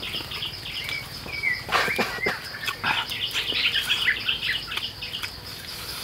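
Tropical forest ambience: a steady high insect drone, a bird's short whistled call repeating every second or two, and a run of rapid, high chattering calls in the middle.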